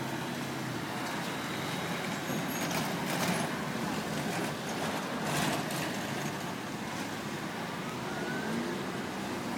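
Vehicle engines running, a steady rumble with two louder swells about 3 and 5.5 seconds in as vehicles pass.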